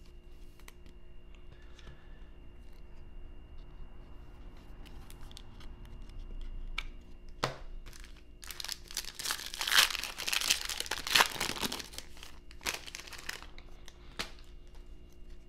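The crinkly plastic wrapper of a 2022 Bowman baseball card pack being torn open, about eight seconds in, in roughly four seconds of loud crackling and tearing. Before that, there are light clicks and rustles of trading cards being handled.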